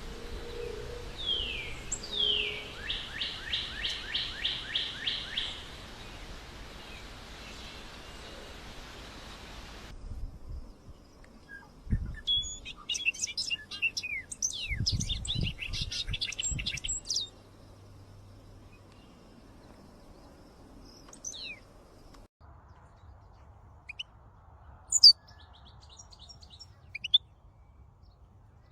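Small songbirds chirping: short downslurred calls and a rapid run of about ten repeated notes in the first seconds, then scattered chirps and trills over a quieter background, with a few single sharp chirps near the end. The background hiss drops abruptly about ten seconds in, and a few low thumps sound around twelve and fifteen seconds.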